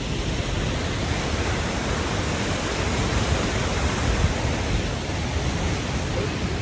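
Krimml Waterfalls: steady rushing of heavy falling water.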